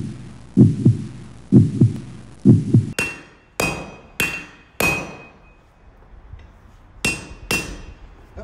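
Four low heartbeat-like double thumps, then hammer blows on a steel anvil during forging. The blows come four at about 0.6 s apart, each ringing briefly, then after a pause two more near the end.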